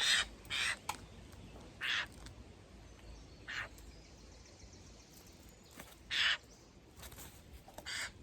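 Eurasian jays giving short, harsh screeching calls, about six of them spaced irregularly.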